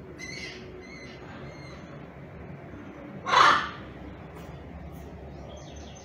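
A single loud, harsh macaw squawk about three and a half seconds in, lasting about half a second, with faint high chirps near the start.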